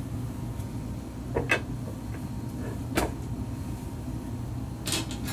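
Cast iron skillet and its lid knocking as the lid is lifted off and the pan is turned over to flip a German pancake onto a plate. There are a few sharp clunks, the loudest about a second and a half in, over a steady low hum.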